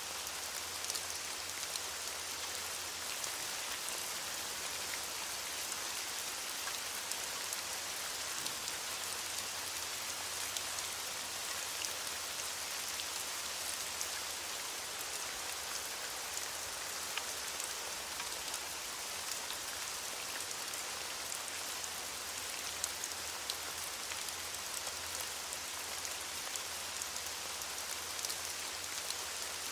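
Steady rain falling, a dense even hiss with many small drops pattering.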